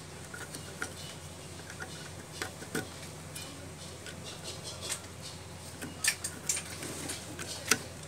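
Small metallic clicks, scrapes and rattles as a hand works inside an electric water heater's element and thermostat compartment, coming thicker and louder near the end, over a low steady hum.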